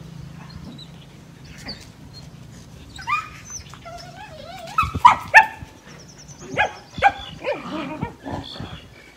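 Dogs at play, wrestling with each other: whines and yips starting about three seconds in, then several short, sharp barks, the loudest pair around the middle.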